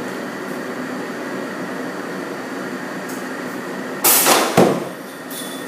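Drop tester releasing a cardboard carton: about four seconds in a sudden loud clack as the arms let go, then about half a second later a thud as the box lands on the wooden impact platform. A steady machine hum runs underneath.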